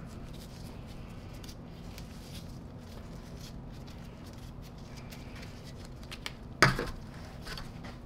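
Small handling noises as parts of a vacuum power-brush head are picked up and set down, over a steady low hum, with one sharp knock about two-thirds of the way through.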